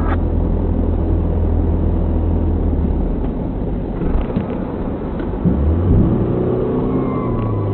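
Car engine and road noise as a steady low drone. About five and a half seconds in, the engine note rises as the car accelerates.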